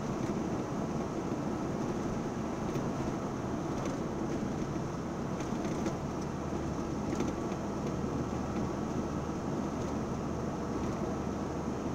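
Steady road and engine noise inside a small truck's cab cruising at highway speed, about 95 km/h, with a constant low hum and a few faint ticks.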